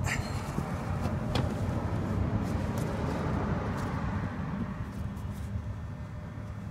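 Steady low rumble, with a couple of sharp clicks and some scraping as a plug insertion tool is forced into the puncture of an ATV tire.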